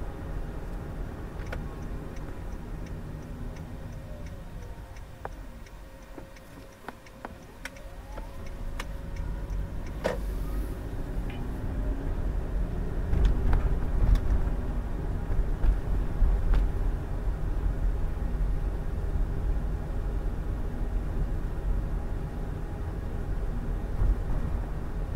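Car driving, heard from inside: steady engine and tyre rumble that quietens about six to eight seconds in as the car slows, then builds again as it picks up speed. Faint, evenly spaced ticking a few times a second during the first few seconds.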